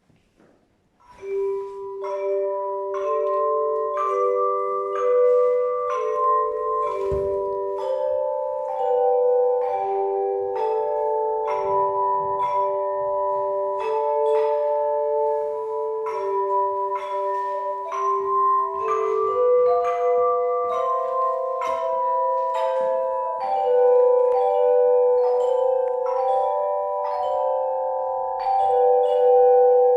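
Tone chime ensemble, handheld tuned metal chimes, playing a slow hymn: each note is struck and rings on, overlapping the next into sustained chords. The playing starts about a second in.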